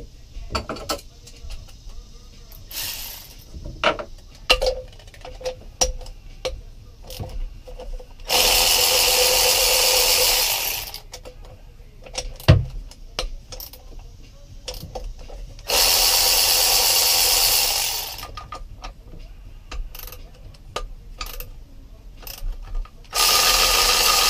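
Cordless electric ratchet running in three steady spells of two to three seconds each, at about eight seconds, sixteen seconds and near the end, as it backs bolts out of the engine. Short metal clicks and knocks of tool handling come between the runs.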